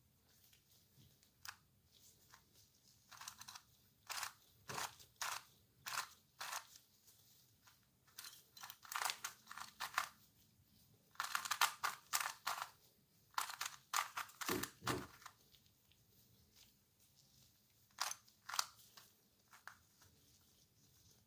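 Plastic clicks, crackles and rustles from a DianSheng Galaxy FTO NEO twisty puzzle and its packaging being handled, coming in irregular bursts with short pauses; the densest, loudest stretch is about halfway through.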